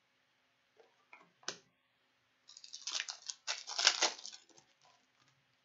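A few faint taps, then crinkling and rustling of a foil hockey-card pack wrapper as it is picked up and handled, in several short crackly bursts.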